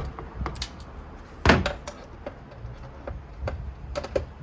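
Scattered knocks and clicks of iMac parts being handled and set down on a work surface, with one louder knock about a second and a half in and a quick run of clicks near the end.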